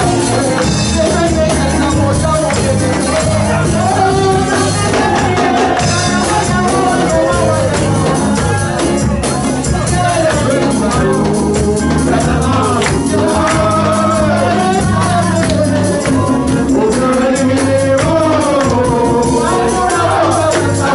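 Live gospel music: a woman singing lead into a microphone over keyboard and drums, with a backing singer, at a steady loud level throughout.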